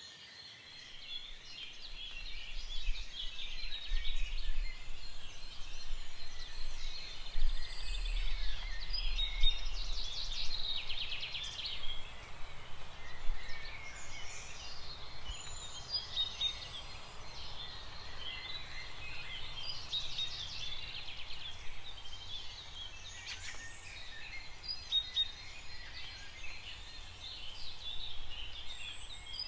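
Many small birds chirping and singing, short calls and trills overlapping throughout, over a low steady rumble that comes in about a second in.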